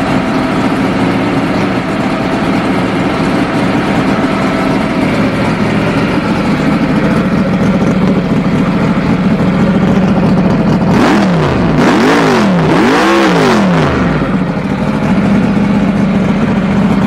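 Twin-turbocharged Hemi V8 drag-racing engine idling loudly, then revved twice in quick succession about eleven seconds in, the pitch climbing and falling back each time before it settles to idle again.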